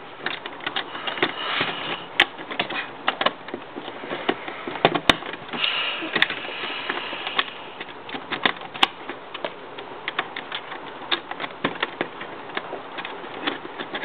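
Lego Technic plastic pieces clicking and tapping as they are handled and fitted back into place: an irregular run of small clicks, a few sharper than the rest.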